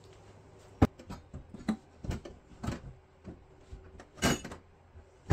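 Handling noises as a wall-hung gas boiler is lifted and set into place: a series of separate knocks and clicks, the sharpest about a second in, and a longer scraping rustle near the end.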